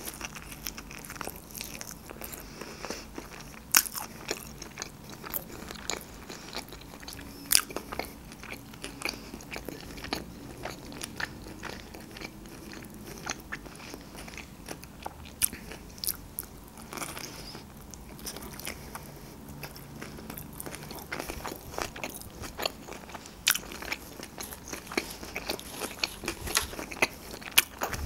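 Close-up sounds of a person biting and chewing fresh rice-paper spring rolls filled with shrimp, avocado, cream cheese and carrot: wet chewing with many sharp, irregular crunches and clicks.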